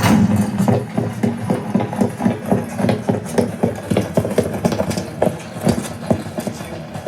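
Film soundtrack played through a Wharfedale Evo 4.c centre-channel speaker: a fast, uneven run of sharp knocks, about four to five a second, over a low rumble.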